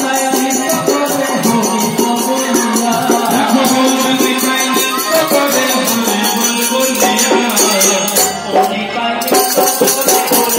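Kirtan devotional music played through a PA system: a voice singing into a microphone over sustained held notes, with a steady rattling beat of hand cymbals and percussion.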